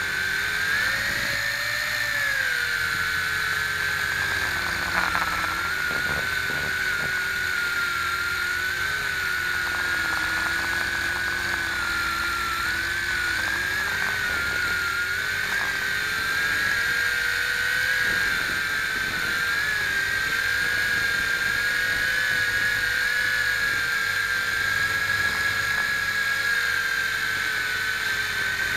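WLtoys V262 quadcopter's electric motors and propellers whining steadily, heard up close through its onboard camera, the pitch rising and falling a little as the throttle changes.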